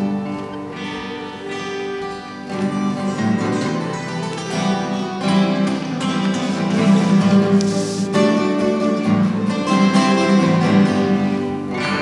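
Instrumental music with sustained, shifting notes.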